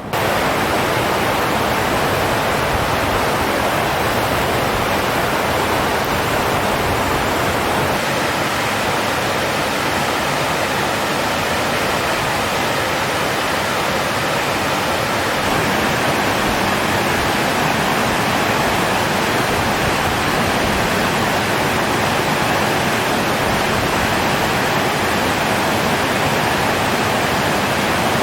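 Water pouring out of an open sluice release outlet into a river channel: a loud, steady rush with no breaks.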